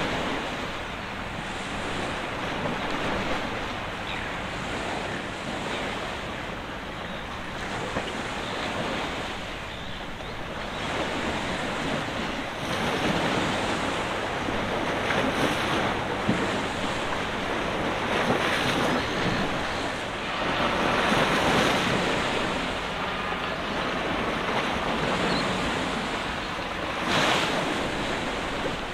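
Wind blowing across the microphone in uneven gusts, over a steady wash of water.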